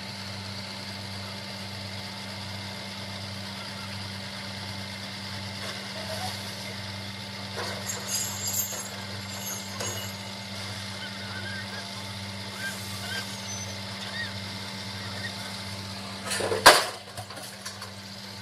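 Vehicle engine running steadily with a low, pulsing hum, and a sudden loud bang near the end.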